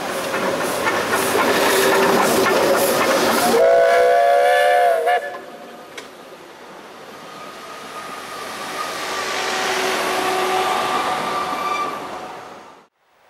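Narrow-gauge steam locomotive passing close under load, with loud, regular exhaust chuffs. Nearly four seconds in, its whistle gives a chord-like blast lasting about a second and a half. The coaches follow, rumbling over the rails with a thin steady wheel squeal on the curve, and the sound cuts off abruptly near the end.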